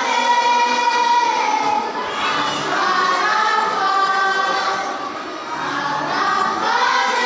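Children's choir singing in long held notes, in phrases of about two seconds each, with a short breath between phrases.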